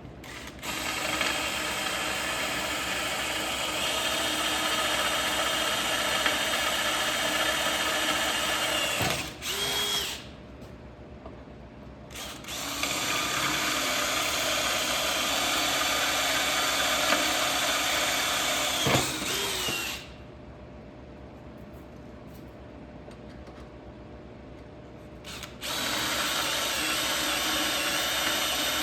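Hammer drill, set to plain drilling, boring pilot holes in the metal firebox door plate. It runs in three long steady spells, with the motor winding down and briefly quiet between them.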